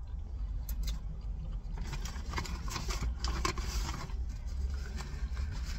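Paper takeout bag rustling and crinkling as it is handled, loudest in the middle of the stretch, over a steady low rumble.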